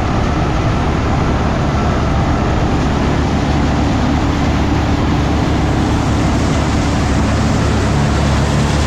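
Tractor-driven silo blower running steadily at high speed, blowing chopped corn up into the silo, over the steady drone of the tractor engine; it is taking the corn now without plugging.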